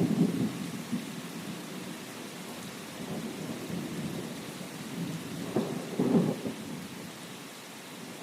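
Steady rain with rolling thunder: a low rumble right at the start and a louder one about six seconds in.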